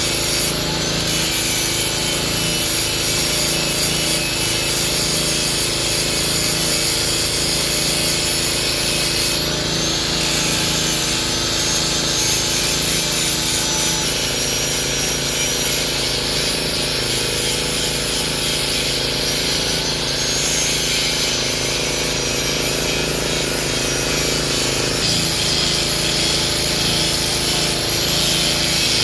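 Hitachi excavator running steadily under load while chopping felled oil palm trunks. Its engine hums, and a high hydraulic whine slowly rises and falls.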